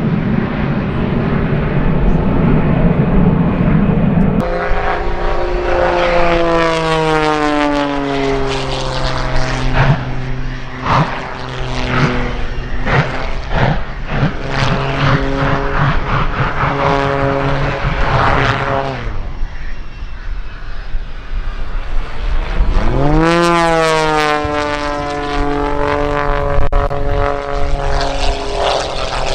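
Airshow aircraft noise. A jet formation's steady rumble runs for the first few seconds. Then comes a piston-engine aerobatic biplane's propeller engine, its pitch sliding down and shifting as it manoeuvres. Near the end, another propeller-engine pass rises and then falls in pitch as it goes by.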